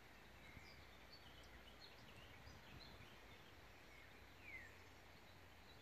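Near silence in open pasture, with faint distant birdsong: scattered short chirps and one brief downward-sliding call about four and a half seconds in.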